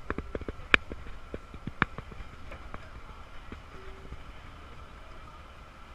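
Footsteps on a concrete jetty: sharp, irregular knocks in the first two seconds that thin out to a few faint taps as the walking stops. A steady low outdoor background rumble runs under them.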